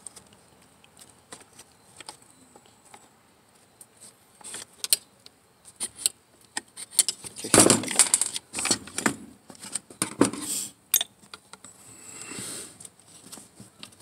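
Plastic and metal parts of a partly dismantled Stihl MS 170 chainsaw clicking, rattling and scraping as they are worked apart by hand. Scattered light clicks at first, then a louder burst of rattling and knocking about halfway through as the housing is lifted and turned, followed by softer scraping.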